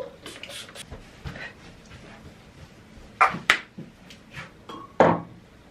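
A perfume spray bottle spritzed in a few quick hisses, then sharp clicks and knocks from items being handled and set down on a counter.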